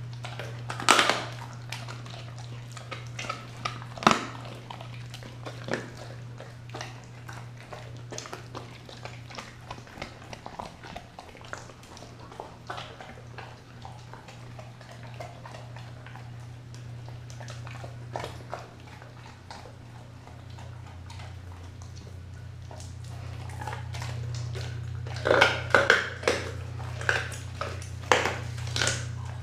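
A Doberman chewing and tearing at raw turkey on a tiled floor: wet chewing with scattered sharp clicks and knocks, several loud ones clustered near the end. A steady low hum runs underneath.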